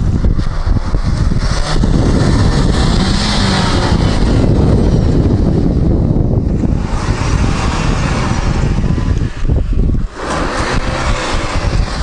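Renault Duster's engine straining as the SUV climbs a loose sandy slope, its wheels spinning and spraying sand, under a heavy rumble of wind on the microphone.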